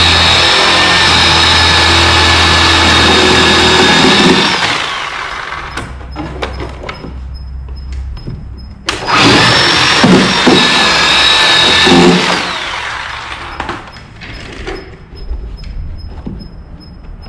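Electric chainsaw cutting into a boat transom's wooden core: the motor runs at full speed for about four seconds and winds down, runs again for about three seconds from about nine seconds in and winds down again. Knocks and rattles of the saw and wood between and after the cuts.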